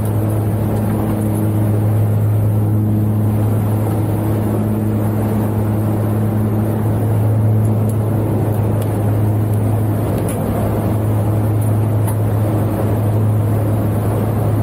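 Propeller-driven cargo plane's engines droning steadily in flight with a strong low hum, heard inside the cabin with the rear ramp open, over a steady rush of wind.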